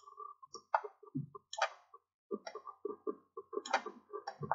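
Faint, irregular clicking of a computer mouse, about a dozen short clicks and ticks.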